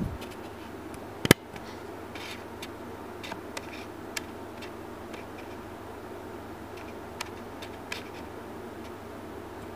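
Handling noise from a closed Agfa Billy Record folding camera turned in the hands: one sharp click a little over a second in, then scattered faint ticks and taps over a steady background hiss.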